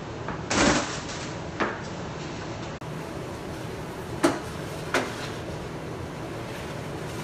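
Steady hiss with four short knocks, the first and loudest about half a second in.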